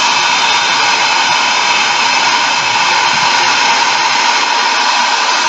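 Handheld hair dryer running steadily at close range: an even rushing blow with a steady motor whine in it.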